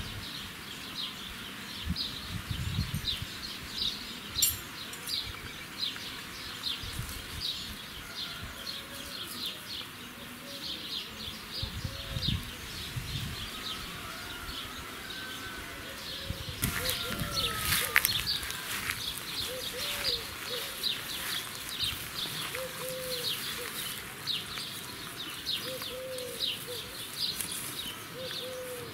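Birds chirping and calling outdoors: a steady stream of short, high chirps with a few lower, arching calls mixed in. A louder rustling noise comes about two-thirds of the way through.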